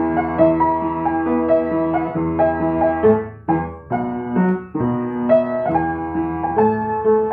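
Piano playing a gentle melody over held chords. It breaks off briefly a little over three seconds in, and again about a second later, then carries on.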